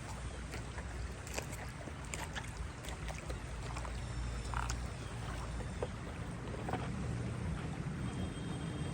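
Outdoor nature ambience: a steady low rumble with scattered light clicks and taps, and faint high chirps near the end.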